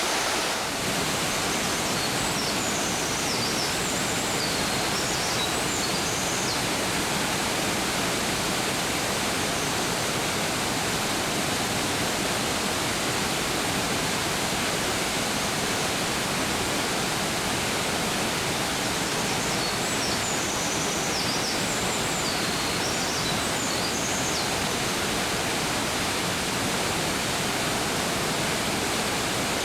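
Rushing mountain stream, a steady, even rush of water. A small songbird sings a quick, high, warbling phrase over it twice, a few seconds in and again about twenty seconds in.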